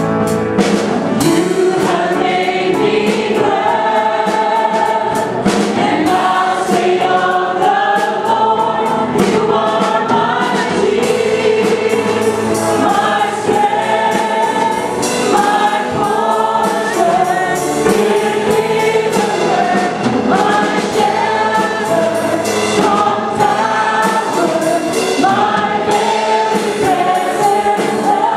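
A worship team of male and female voices singing a Christian worship song together through microphones, backed by a live band with drums and cymbals keeping a steady beat.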